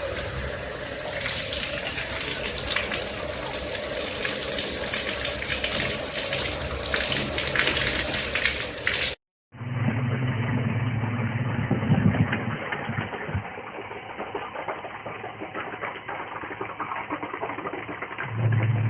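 Water running in a steady spray from a slip-on shower hose, which cuts off abruptly about nine seconds in. After that comes a muffled stretch with a low hum that starts and stops twice.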